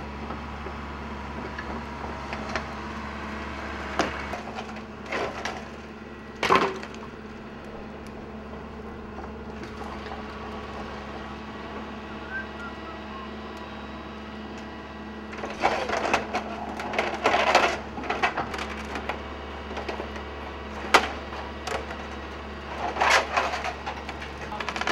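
Excavator tearing into a wood-frame building: timber cracking and splintering, with single sharp cracks early on and heavier runs of splintering about two-thirds through and near the end, over the steady hum of the machine's engine.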